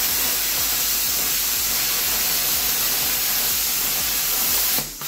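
Bestarc BTC500DP plasma cutter's arc and compressed-air jet cutting through 4 mm metal plate: a loud, steady hiss that cuts off abruptly near the end as the cut finishes.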